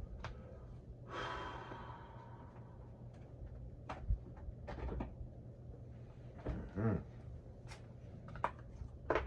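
Scattered light clicks and taps of small phone parts and tools being handled during an iPhone screen replacement, over a low steady hum. A brief breathy hiss comes about a second in, and a short voiced grunt near seven seconds.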